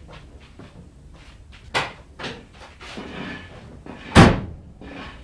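A few irregular knocks, then one loud, deep thump about four seconds in.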